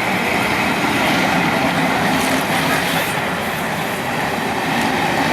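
Steam-hauled train pulling slowly out of a station, with a steady rolling noise from the locomotive and coaches on the rails.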